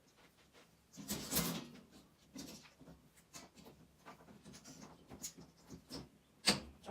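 C&C cage parts, wire grids and coroplast, being handled: a rasping scrape about a second in, then scattered light clicks and a sharper click near the end.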